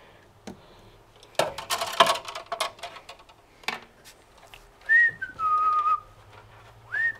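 Sharp clicks and rattles of wire leads and connectors being handled, then a person whistling a short phrase that drops from a higher note to a lower one. The whistling starts again near the end.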